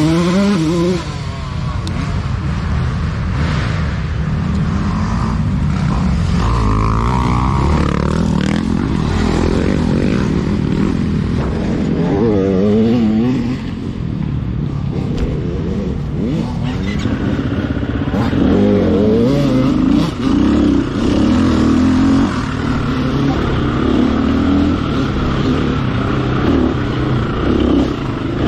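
Off-road dirt bike engine being ridden hard, its pitch rising and falling constantly as the throttle is opened and shut, with a few brief drops where the throttle is rolled off. Rattle from the bike runs under the engine.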